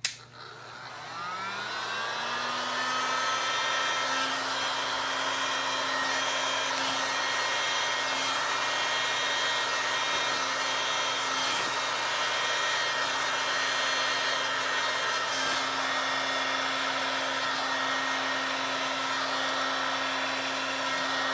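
Heat gun on its lowest setting clicking on, its fan whine rising over the first couple of seconds, then running steadily with a hiss of blown air.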